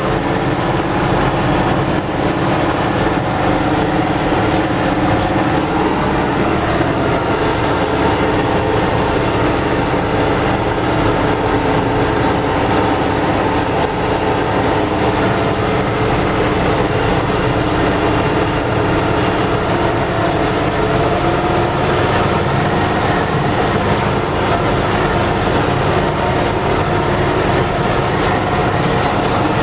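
MTZ tractor's diesel engine running steadily, with its freshly repaired drivetrain and no axle hum standing out.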